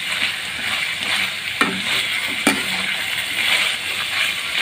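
Diced banana stem frying in oil in a metal kadai, with a steady sizzle as it is stirred with a metal spatula. Near the middle, the spatula knocks sharply against the pan twice, about a second apart.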